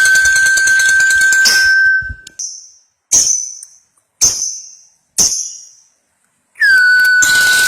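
Lovebird's long, rapid chattering trill ('ngekek panjang') over a steady high tone, breaking off about two seconds in. Four bright ringing dings follow, each fading away, before the chattering and tone start again near the end.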